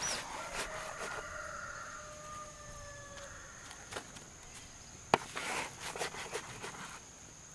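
Rooster crowing once, a long call lasting about three seconds that sags slightly at its end, over a steady high insect buzz. A sharp click about five seconds in.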